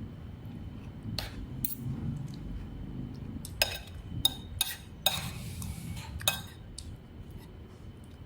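Spoons and dishes clinking: a string of sharp clinks over several seconds, with a short scrape in the middle.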